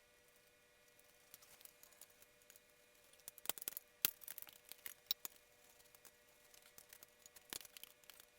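Scattered sharp clicks and clinks of hand tools and metal parts being handled while working on a motorcycle, in a quick cluster around the middle and once more near the end, over a faint steady hum.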